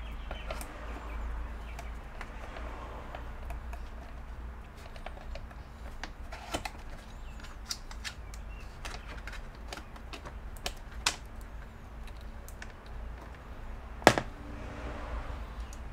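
Scattered light clicks and taps of parts and tools being handled while a power supply is fitted into an opened iMac, with one sharp knock about fourteen seconds in, over a steady low hum.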